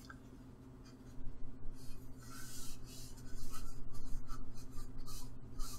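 Paper towel rubbing over a glass print bed in a run of scrubbing strokes that start about a second in, wiping off leftover glass cleaner, over a steady low hum.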